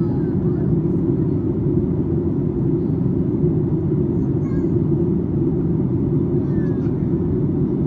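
Steady in-flight cabin noise of a Boeing 737-8 MAX heard from a window seat: a deep, even rush of airflow and engine noise.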